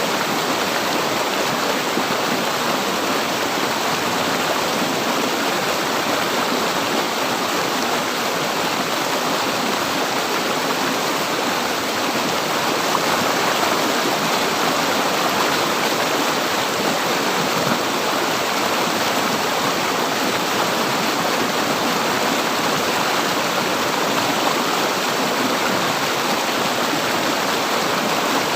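River water flowing and splashing in a steady, unbroken rush.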